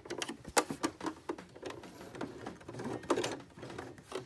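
Domestic sewing machine stitching slowly on a long, wide zigzag through elastic and fabric binding: a few irregularly spaced needle clicks and knocks rather than a steady run.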